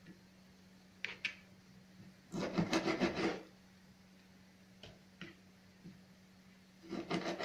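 Kitchen knife slicing raw pork into strips on a plastic cutting board, the blade sawing and scraping against the board. There is a short stroke about a second in, a longer run of strokes lasting about a second soon after, and another near the end, over a faint steady hum.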